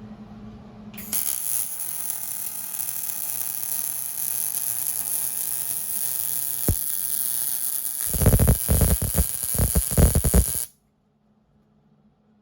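MIG welder arc welding an exhaust pipe: a steady crackling hiss that starts about a second in, turns into louder, uneven sputtering for the last couple of seconds, then cuts off suddenly when the trigger is released.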